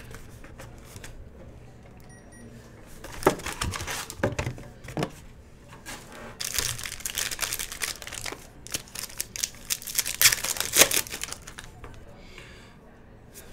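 Foil trading-card pack wrappers crinkling and tearing as packs are handled and opened, with scattered taps and rustles of cards. The crinkling is densest and loudest in the middle, then dies down near the end.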